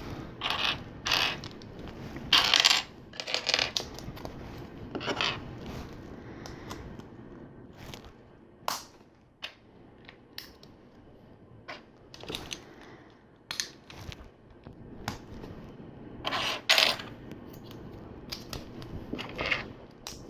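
LEGO plastic bricks and plates clicking and clattering as pieces are picked out of a pile and pressed together. The clicks come irregularly, with a few louder clatters.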